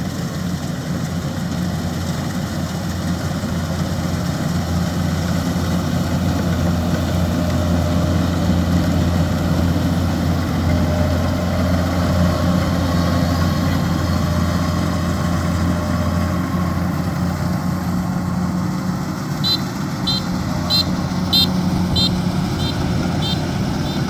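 Kubota DC-93 rice combine harvester running steadily as it cuts and threshes rice: a low, even engine drone. About twenty seconds in, a quick run of short high chirps sounds over it.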